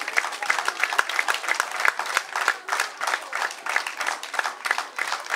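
Audience applauding, a dense run of hand claps.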